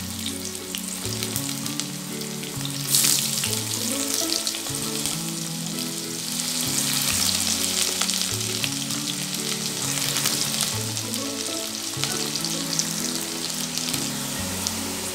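Chopped onions frying in hot mustard oil in a kadhai, a steady sizzle that flares up briefly about three seconds in.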